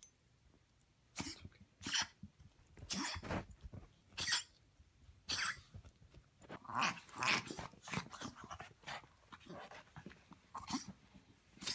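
A pet coughing and snorting in a run of short, harsh coughs and snorts, about a dozen over several seconds, with brief pauses between them.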